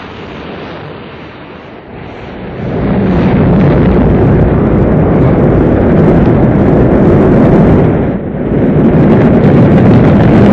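Rocket launch: the engines' loud, steady rumble, growing much louder about two and a half seconds in and dipping briefly near the end.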